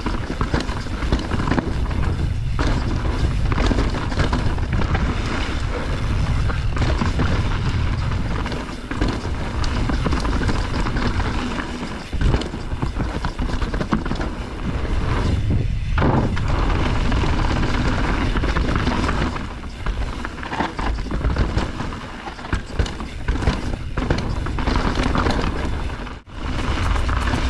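Canyon Spectral mountain bike ridden downhill on a dirt trail: wind buffeting the action camera's microphone as a heavy rumble, with tyres rolling on dirt and the bike rattling and knocking over bumps. The sound breaks off briefly near the end.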